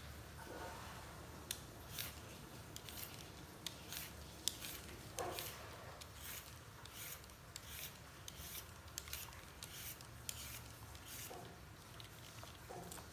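Handheld vegetable peeler scraping the skin off a root vegetable in short, irregular strokes, faint throughout, with a few brief squeaks in between.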